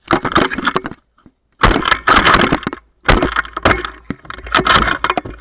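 Four loud bursts of crackling, rustling noise close to the microphone, each about a second long.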